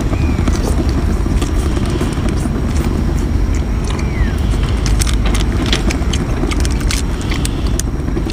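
Steady low wind rumble on the microphone, with scattered sharp clicks of biting and chewing.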